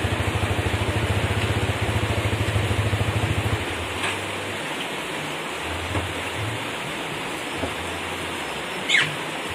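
Honda CBR150R's single-cylinder engine idling with a quick, even pulse, then shut off about a third of the way in, leaving steady rain hiss. A short high squeak comes near the end.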